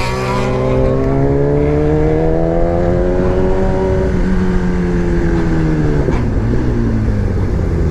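Motorcycle engine under load, its pitch rising steadily for about four seconds, holding, then falling away around six seconds in as the throttle is eased, over a steady low rush of noise.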